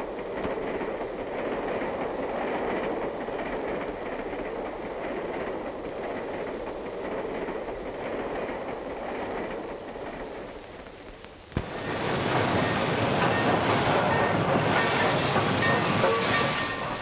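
Train sound effects from a 1930s film soundtrack: the steady rumble of a moving train heard from inside a sleeping car, easing off, then after a sharp click about eleven seconds in, a louder, brighter rush as a steam locomotive pulls into a station, with thin squealing tones over it near the end.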